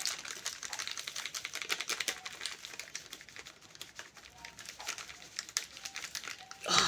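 Rapid, light clicks and taps from food preparation with kitchen utensils, such as quick chopping of chilies on a cutting board. A louder noise comes in right at the end.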